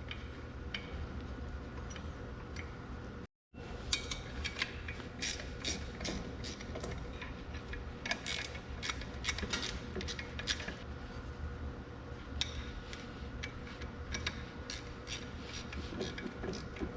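Ratchet wrench tightening bolts with silicone-coated threads on a tractor axle assembly: irregular sharp metallic clicks of the ratchet and tool, over a steady low shop hum. The sound breaks off briefly about three and a half seconds in.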